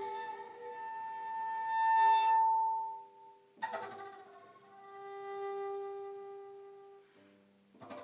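Instrumental music of long held notes. One high note swells loudest about two seconds in and fades away, and a new phrase starts sharply about halfway through.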